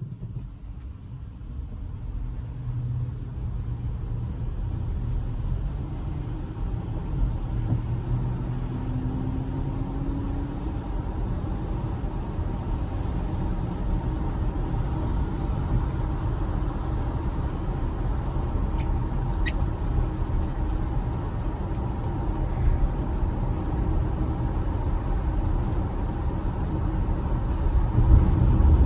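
Road and tyre noise heard inside the cabin of a Tesla Model Y, an electric car with no engine note, on a wet road: a low rumble with a hiss that builds as the car speeds up over the first few seconds, then holds steady. A couple of faint clicks come about two-thirds of the way through.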